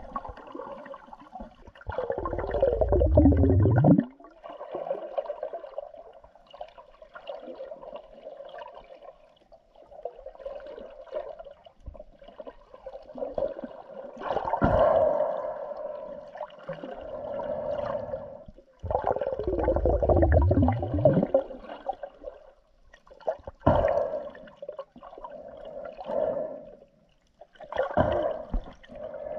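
Muffled underwater water noise heard through a camera's waterproof housing. Twice there is a loud gurgling surge lasting about two seconds, with a deep rumble and falling sweeps, and shorter swishing surges come near the end.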